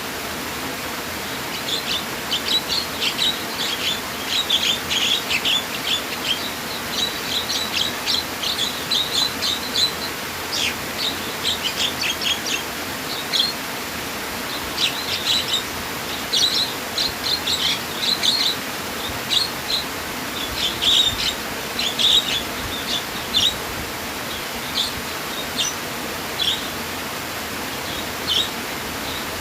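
Small songbirds chirping in quick bursts of short, high notes over a steady rush of flowing water. The chirping thins out near the end.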